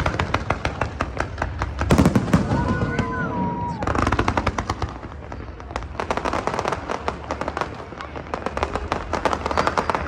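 Fireworks going off: rapid crackling and popping with many quick reports, loudest about two seconds in.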